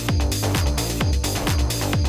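Electronic background music with a steady deep kick drum about twice a second.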